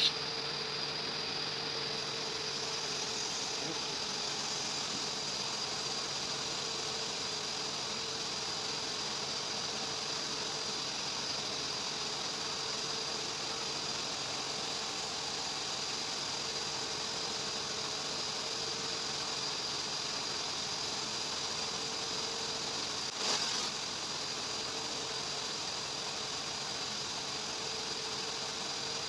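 Steady mechanical hum of workshop machinery with a thin steady high whine over it, and one short knock about three-quarters of the way through.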